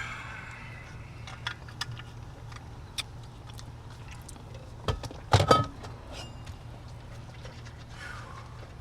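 Scattered light clicks and a brief clatter about five seconds in, over a steady low hum.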